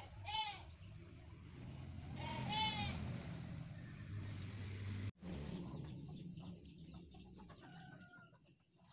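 Two short farm-animal calls, one just after the start and one about two and a half seconds in, over a low steady hum. About five seconds in the sound cuts out for a moment, then faint light ticks follow.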